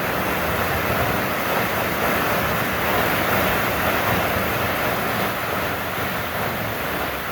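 Waterfall pouring into a rain-swollen, fast-flowing river: a loud, steady rush of falling and churning water.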